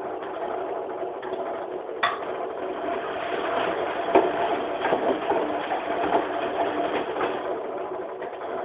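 1993 Profilo EKO-3310A front-loading washing machine (an AEG Lavamat built under licence) running a wash with shoes in the drum: a steady motor hum with a few sharp knocks, the loudest about four seconds in, as the shoes strike the drum.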